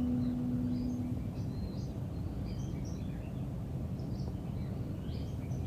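Outdoor ambience: small birds chirping here and there over a steady low background rumble.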